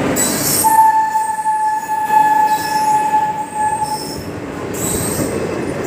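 An Indian Railways WAP-4 electric locomotive and its coaches pulling into the platform, with one long steady high squeal for about three seconds, typical of wheels and brakes as the train slows. After that comes the rolling rumble of the coaches passing.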